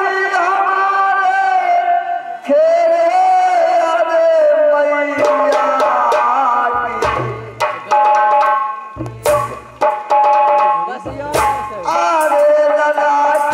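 A man sings long, wavering held notes into a microphone. From about five seconds in, a hand drum comes in with sharp strokes and deep booming beats in three short clusters.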